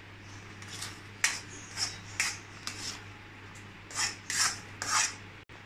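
A perforated metal spatula is being stirred and scraped through thick mango kesari in a metal kadai, giving about seven short, uneven scrapes. A steady low hum runs underneath.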